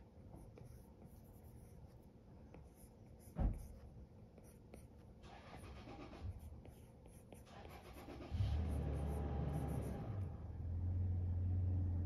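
Apple Pencil tip tapping and sliding on an iPad's glass screen in light sketching strokes, with one knock about a third of the way in. About two-thirds in, a loud, steady low hum starts and drowns out the strokes.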